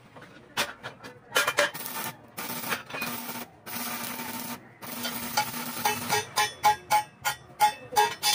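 Electric arc welding on a steel tube sidecar frame: a steady crackling sizzle that breaks off briefly a few times. From about six seconds a hammer strikes metal in quick, ringing blows, about three or four a second.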